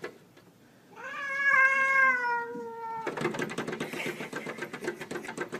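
A cat gives one long, drawn-out yowl about a second in, falling slowly in pitch: a hostile call at a rival cat through glass. It is followed by a fast, rough rattling pulse sound.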